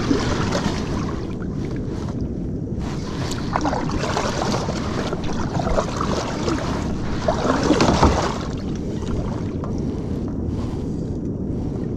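Kayak paddle strokes swishing and splashing in the sea every few seconds, over wind noise on the microphone. The loudest stroke comes about eight seconds in.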